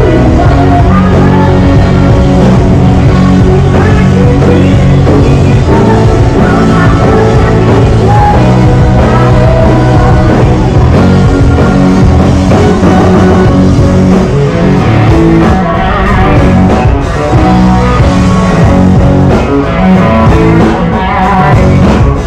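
Loud rock music with guitar and singing.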